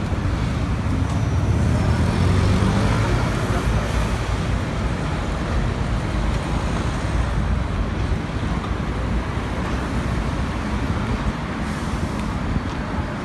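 Road traffic on a busy city street: a steady rumble of cars and buses passing close by, loudest about two to four seconds in.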